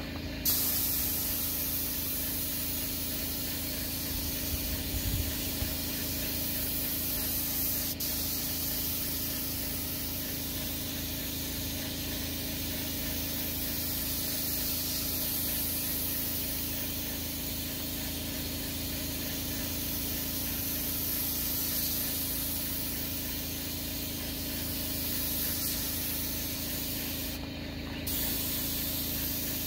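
Paint spray gun hissing steadily, with a steady low hum underneath. The spray cuts out briefly near the end, then starts again.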